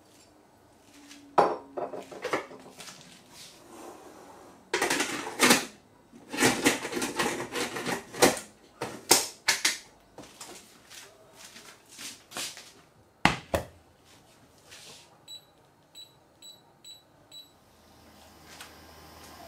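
Metal clanks, scrapes and clicks as the lid of a stainless steel pressure cooker is set on and locked onto the pot. Near the end, five short electronic beeps about half a second apart, from the touch controls of an induction hob being switched on.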